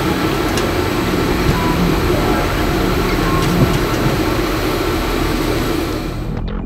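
Propane (LPG) burners of a coffee roaster burning steadily during preheat, an even rushing noise. Near the end it cuts off into a transition sound.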